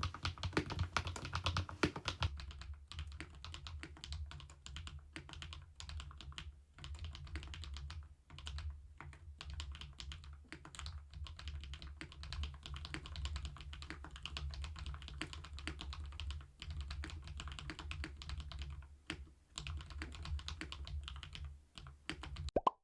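Continuous fast typing on a Kemove K87 1980 mechanical keyboard: a dense, irregular run of keystrokes that stops suddenly near the end.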